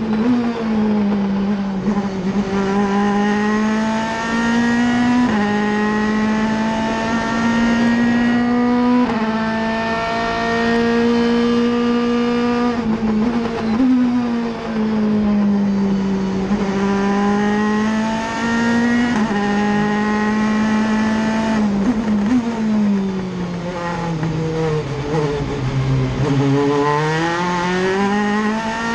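Audi RS5 DTM race car's V8 engine at full throttle, heard inside the cockpit. The revs climb in each gear and fall sharply at every upshift, about every four seconds. Near the end they sink to a low, then climb again.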